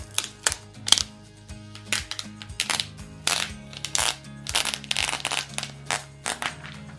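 Clear plastic protective film being peeled off a laptop's aluminium base, giving irregular crackles and crinkles, over steady background music.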